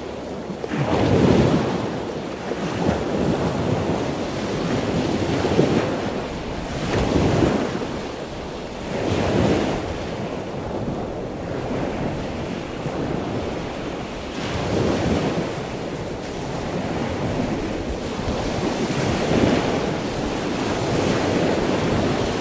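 Ocean surf: a steady rush of waves washing in, swelling and fading every few seconds.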